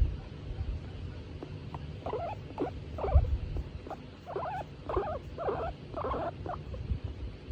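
Skinny (hairless) guinea pig calling, a run of about seven short calls starting about two seconds in, over a low rumble. The calls come from the animal being stroked and in a contented mood.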